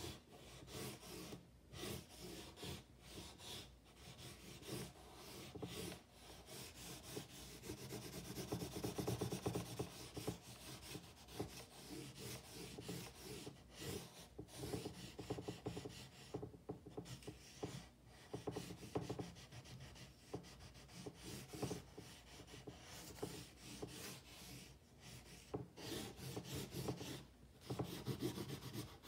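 A drawing stick scratching and rubbing across a sheet of paper pinned to a corkboard, in quick irregular sketching strokes with short pauses between them. The strokes are busiest about a third of the way in and again near the end.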